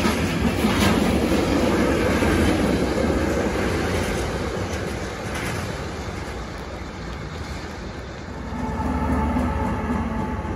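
Freight wagons rolling past, wheels clicking over rail joints, the rumble fading as the end of the train goes by. Near the end a diesel locomotive's engine hum rises.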